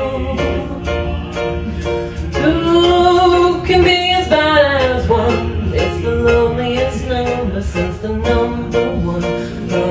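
A woman singing live into a microphone over a karaoke backing track with a steady plucked-string accompaniment, holding a long, bending note about a third of the way in.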